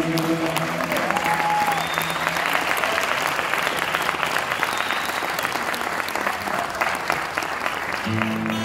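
Concert audience applauding loudly as a song ends, with the last held notes of the music dying away at the start.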